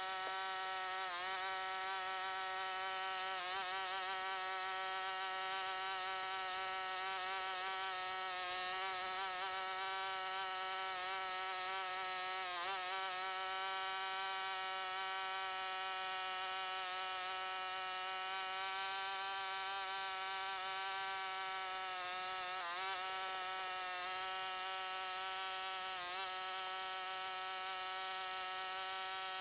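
Honda GCP160 overhead-cam lawnmower engine running steadily with ketchup in its crankcase instead of oil, a constant buzzing drone that briefly wavers in pitch a few times as it stumbles.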